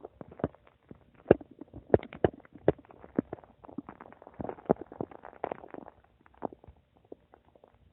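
Human stomach gurgling: a quick, irregular run of wet pops and clicks that crowds together about halfway through, then thins out to scattered pops near the end.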